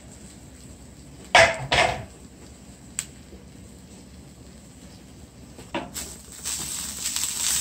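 Two loud clanks of metal kitchenware against a stainless steel skillet about a second and a half in, then a small click. Near the end a metal spoon starts scraping and stirring dry coconut flakes in the pan.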